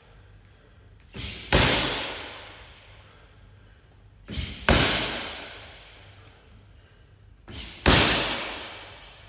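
Muay Thai switch kicks landing on a hanging heavy bag: three hard smacks of shin against the bag, about three seconds apart. Each is led by a softer sound a fraction of a second earlier and dies away over a second or so.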